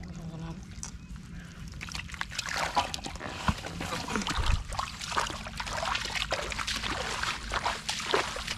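Shallow field water splashing and sloshing as hands work through it, in irregular splashes that come thicker from about two seconds in, over a low steady rumble.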